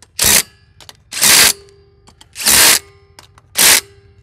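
DeWalt 20V cordless impact driver with a socket running lug nuts onto a golf cart wheel, in four short bursts about a second apart, one per nut.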